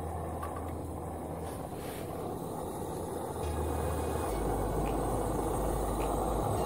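SOTO ST-310 butane camping stove burning with a steady hiss of gas flame under a kettle, a sound likened to a hawker's char kway teow wok burner. It grows a little louder in the second half.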